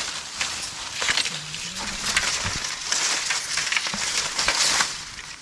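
Rustling and crunching of dry leaves and brush, with many scattered sharp snaps and crackles.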